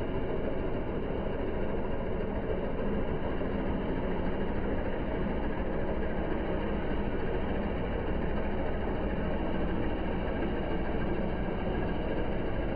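Massey Ferguson 385 tractor's diesel engine running steadily under load as it pulls a tine cultivator through dry, loose soil.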